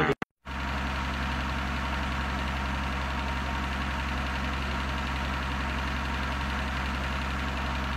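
A steady, unchanging low hum with a hiss over it, starting just after a brief drop to silence.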